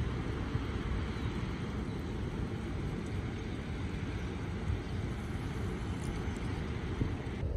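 Fast, churning river water rushing out below a dam outlet, a steady rushing noise, with wind buffeting the microphone in the lows.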